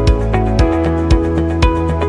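Background music with held synth chords and a steady beat.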